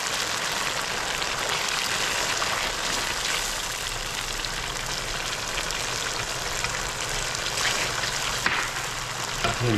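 Butter-garlic sauce sizzling and bubbling steadily in a wok as a metal spatula stirs through it.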